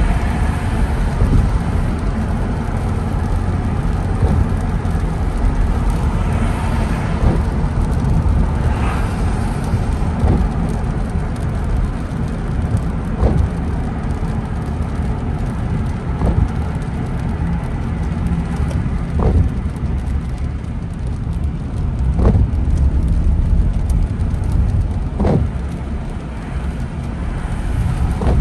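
Car driving on a wet road in rain: a steady, low rumble of road and tyre noise with the engine underneath, and a brief sound repeating about every three seconds.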